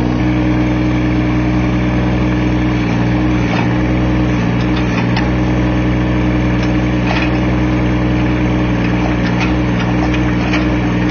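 Mini excavator's engine running at a steady speed while the boom and bucket are worked, with a few faint clicks over it.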